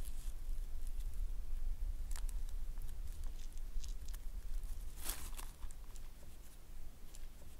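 Hands handling a coiled grass basket and a palmful of small seeds and berries: faint rustling and scattered small clicks, with one louder scrape about five seconds in, over a low steady rumble.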